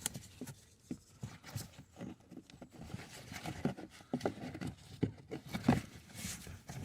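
Irregular light knocks and scrapes as a new cabin air filter is worked by hand into its housing under the glove box.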